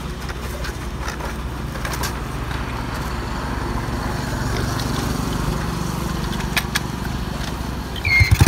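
Small motorcycle engine idling steadily at a standstill, a low even hum, with a short high squeal near the end.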